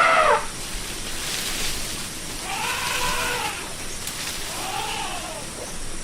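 Elephant calling: a loud call cuts off just after the start, then two shorter calls follow, each rising and then falling in pitch, about three and five seconds in.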